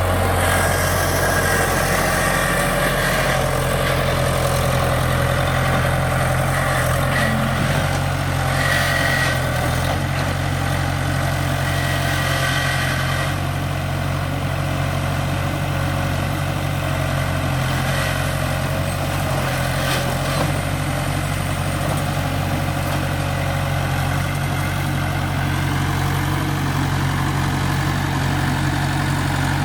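Case 1845C skid steer's four-cylinder diesel engine running at a steady speed while the machine works, with a brief higher whine twice in the first half.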